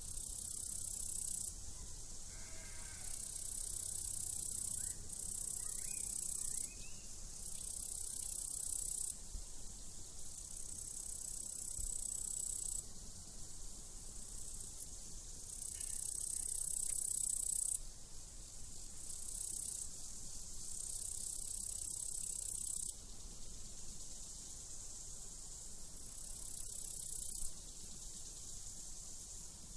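Crickets chirring in on-off trills lasting one to three seconds each, with a sheep bleating faintly about two to three seconds in.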